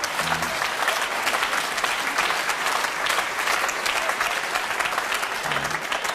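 Audience applause: many hands clapping together at an even level.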